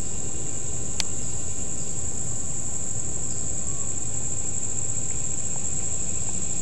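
A chorus of insects trilling in one steady, high-pitched, unbroken band, with a single sharp click about a second in.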